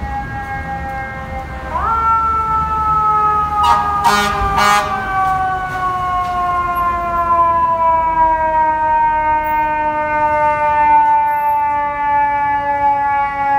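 Fire engine's mechanical siren: it winds up sharply just under two seconds in, then slowly coasts down in pitch as the engine approaches. A few short horn blasts sound about four seconds in.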